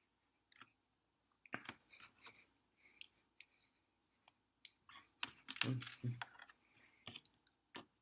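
Plastic LEGO pieces clicking and clattering as they are picked up and handled, with a denser run of knocks and rattles about two-thirds of the way through.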